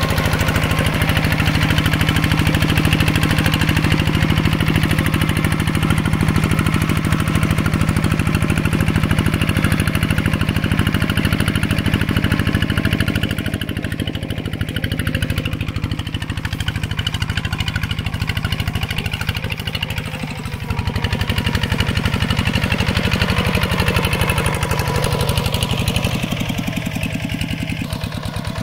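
Mini tractor engine running steadily while plowing. Its note drops a little about halfway, dips briefly about two-thirds of the way through, then picks up again.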